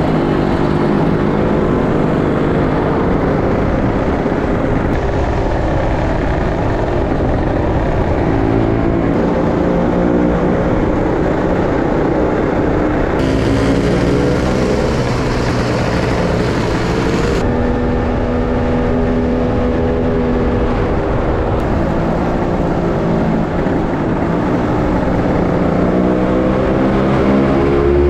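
A Lambretta scooter's two-stroke single-cylinder engine running under way, heard from on board with wind rushing over the microphone. Its pitch rises and falls with the throttle and gear changes, and the sound changes abruptly several times.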